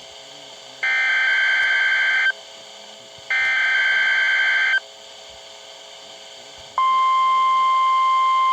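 NOAA Weather Radio SAME header: two bursts of warbling digital data, each about a second and a half long, over a hiss. About two seconds after the second burst the steady 1050 Hz tone alert begins. Together they make up the required weekly test of the alert system.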